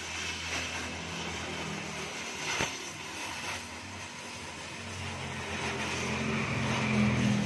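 Welding torch hissing as it welds a steel exhaust pipe under a car, over the low drone of a vehicle engine running nearby, which grows louder toward the end. A single sharp click comes about two and a half seconds in.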